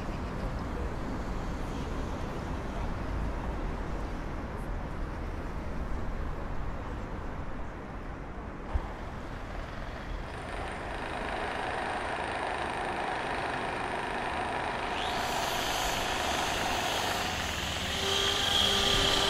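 A steady low rumbling noise, like heavy traffic, with one sharp click a little before halfway. From about 15 seconds in, a hiss builds in the highs, and faint steady tones come in near the end.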